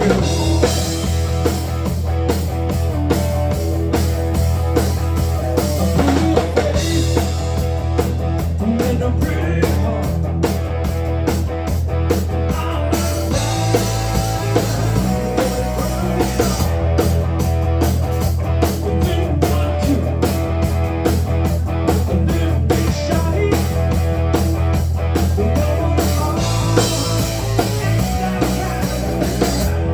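Live rock band playing amplified: electric guitars over a drum kit with a steady beat and a low bass line.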